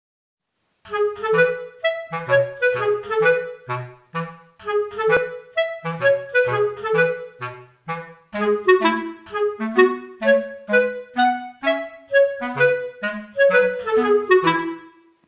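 Background music: a melody on a wind instrument over a bass line, starting about a second in and running in phrases with short breaks.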